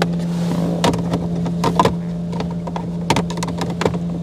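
A steady low mechanical hum, with a string of sharp clicks and light knocks from handling a diagnostic scan tool and plugging in its connector.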